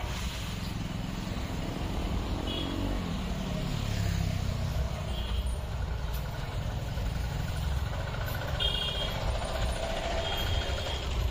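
Steady low rumble of road vehicle engines in traffic, with a falling engine note about three seconds in.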